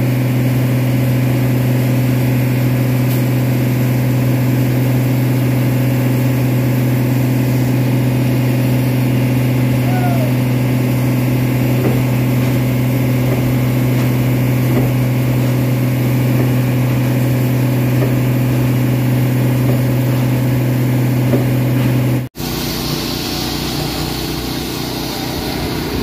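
Concrete pump truck's diesel engine running steadily at constant speed while it pumps concrete through the boom. About 22 s in it cuts off abruptly, and a quieter steady machine sound takes over.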